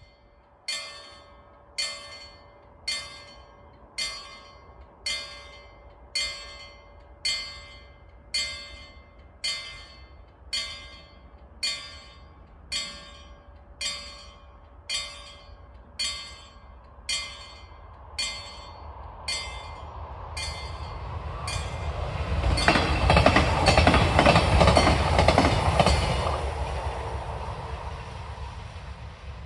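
Level-crossing warning bell ringing about once a second, stopping just before the train arrives. Then a pair of coupled Lint 41 diesel railcars passes the crossing, growing loud for a few seconds and fading away.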